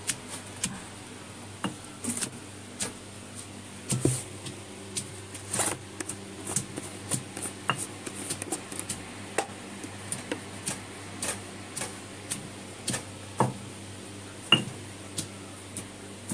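Irregular light clinks and taps of a metal spoon against a plastic bowl and containers as spice powders are spooned in for a masala mix, over a steady low hum.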